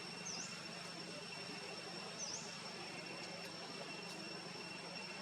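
A steady high-pitched insect drone, with two short high chirps about two seconds apart and a fainter one near the end.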